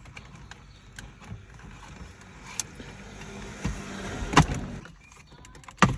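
Plastic dashboard trim around a car's screen being pried at: small clicks and scraping, with a loud sharp snap about four and a half seconds in and another near the end as the trim clips give.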